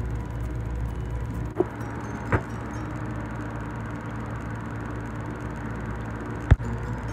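Steady low rumble of a gas stove burner's flame under a metal pot, with two light knocks a couple of seconds in and a sharper, louder knock near the end.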